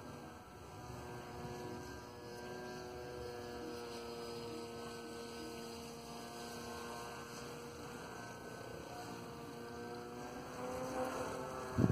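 Radio-controlled flying wing's motor and propeller buzzing as a steady hum overhead, its pitch rising a little and getting louder near the end.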